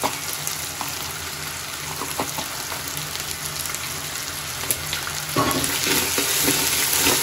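Browned onions and whole spices sizzling in hot oil in a steel handi, with a few light clicks. About five seconds in, a steel slotted spoon starts stirring and scraping through them, and the sizzle gets louder.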